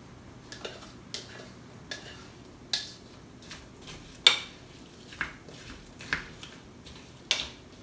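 A spatula scraping and tapping against a plastic mixing bowl and a saucepan as food is scraped from the bowl into the pan and stirred: scattered light clicks and knocks, the sharpest about four seconds in.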